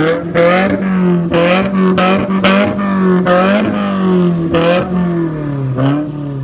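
Subaru WRX flat-four engine revved repeatedly while parked, heard through its aftermarket quad-tip exhaust: a quick series of throttle blips, the note rising and falling, settling lower near the end.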